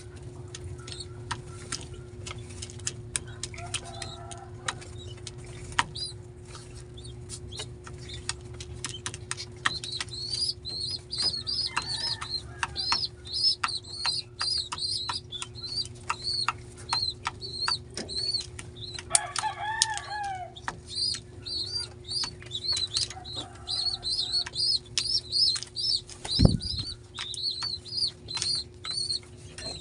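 Pigeon squab begging in a nest box: rapid, repeated high squeaks from about a third of the way in, with wing flapping and short clicks from the adult pigeon over it. Lower calls come a few times, and a single low thump near the end is the loudest sound.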